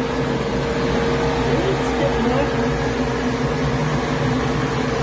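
Extremely loud shop machinery from the glass-bead blasting setup running steadily: a constant hum at a few fixed pitches over an even hiss.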